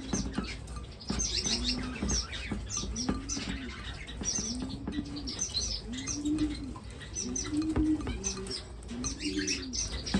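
Aviary finches chirping busily with many short, high calls, while a dove gives a low coo about once a second.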